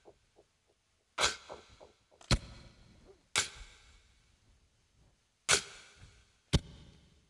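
Sharp percussive hits at the opening of an acoustic song, five of them at uneven intervals of about a second, each ringing briefly, with a few soft plucked guitar notes in between.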